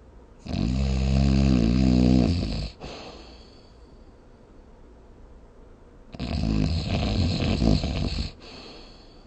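Snoring: two long snores of about two seconds each, with a wavering pitch, the second starting about six seconds after the first.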